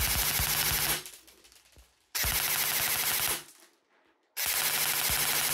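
Delta Armory Bravo ETU Silent Ops M4 airsoft electric gun (AEG) firing three full-auto bursts of about a second each, about 12.5 rounds a second on a 7.4 V LiPo battery, the gearbox cycling and BBs firing into a chronograph.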